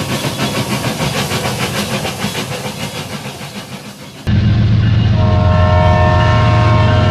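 Toy train sounds: a fast rhythmic rattle and hiss from toy trains on plastic track that fades as they move off. About four seconds in it cuts abruptly to a much louder, steady train sound, a deep hum with a chord of held horn-like tones, such as a toy locomotive's sound effect.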